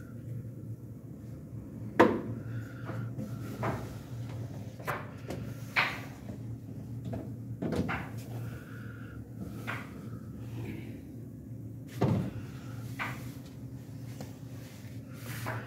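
Scattered knocks and clacks, about eight in all, the loudest about two seconds in and near twelve seconds, over a steady low hum.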